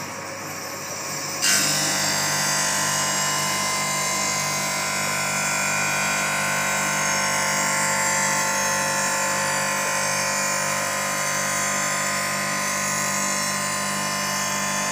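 Electric grinding wheel of a cylinder mower grinder running, its motor humming; about a second and a half in, the wheel bites into the mower's steel cutting edge and a loud, steady grinding hiss sets in as it traverses along the blade, sharpening it.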